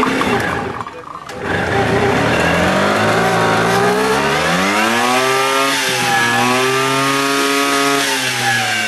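Small two-stroke moped engine being revved hard, sounding like a Formula 1 car. It dips briefly about a second in, then its pitch climbs from about three seconds, drops for a moment near six seconds, climbs again and holds high before easing off near the end.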